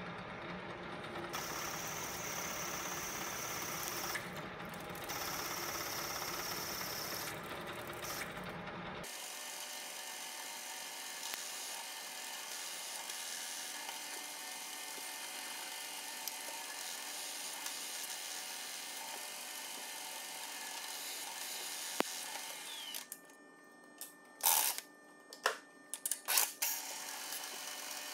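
Milling machine spindle running and cutting metal as it drills holes in a thick round metal plate. A steady motor whine and cutting noise carry a low rumble that drops out about nine seconds in. Near the end there is a quieter stretch broken by several sharp clicks.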